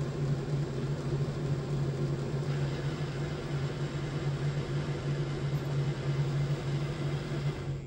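Lionel GE U-33C O-scale locomotive running on a test stand: its two motors and gears give a steady hum and whir, with a rub from the front where the shell is creeping backwards onto the mechanism. The sound cuts off suddenly near the end as the power is shut off.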